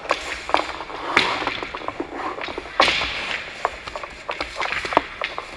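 Ice hockey practice sounds: about half a dozen sharp knocks and cracks of sticks and pucks, the loudest about three seconds in, with hissing skate blades scraping the ice as the goalie drops and slides.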